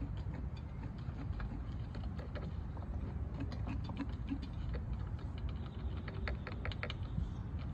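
Light, irregular clicks and taps of a lawn mower's dipstick against its oil fill tube as it is pushed in and pulled out, densest near the end, over a steady low rumble.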